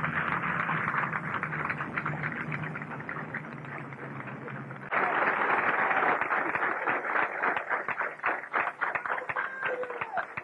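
Large crowd applauding and cheering, growing louder and denser about five seconds in, with a steady low hum under the first half.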